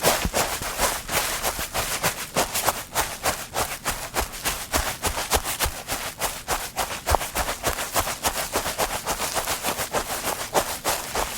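Footsteps on grass: a quick, even series of steps, each a short crunching swish of blades under the foot.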